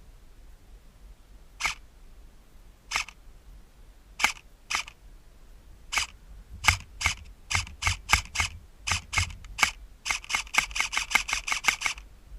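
Airsoft gun firing sharp single shots, at first a second or more apart, then quicker, ending in a rapid string of about six to seven shots a second for the last two seconds.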